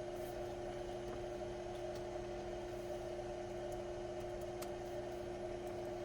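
Steady electrical or machine hum with a few faint, scattered clicks.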